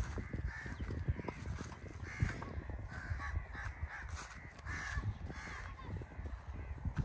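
Crows cawing repeatedly, with short calls every second or so, over a low rumbling background.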